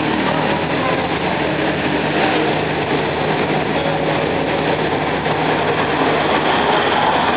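Steady running noise heard from aboard the open carriage of a tourist road train moving along a city street: engine hum mixed with rolling road noise.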